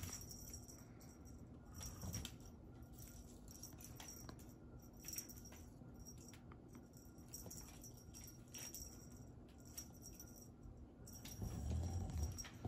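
Small motorised rolling cat-toy ball clicking and rattling as it rolls and bumps across a hardwood floor while a kitten bats at it, with scattered light taps; a louder low rumble of the rolling toy comes about a second before the end.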